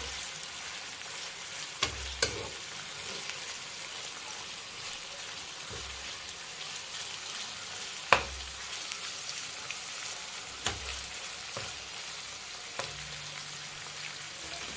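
Chicken pieces sizzling as they fry in oil in a non-stick pan, giving off their water. A steel spoon stirs and knocks against the pan a few times, the loudest knock about eight seconds in.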